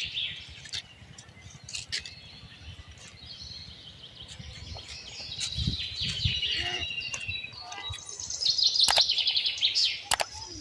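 Small birds chirping and calling, with a loud, fast trill of rapidly repeated notes near the end. A few low thumps come around the middle.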